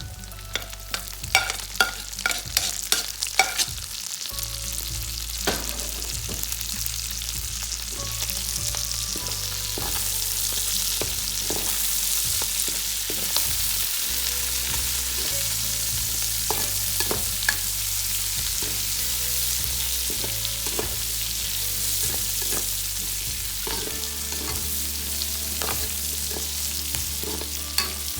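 Food frying and sizzling in a hot pan while being stirred. A quick run of clacks from a utensil against the pan comes in the first few seconds, then a steady sizzle with an occasional tap.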